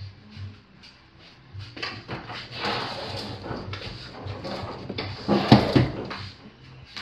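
Close rustling and knocking, as of things being handled near the microphone, with the loudest burst about five and a half seconds in.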